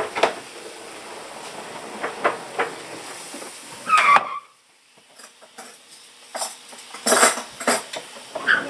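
Water boiling on a hot electric griddle: a steady sizzling hiss with scattered pops. About four seconds in comes a brief louder whistling flare, then the hiss cuts off suddenly and only sporadic crackles and pops remain as small droplets spit off the drop.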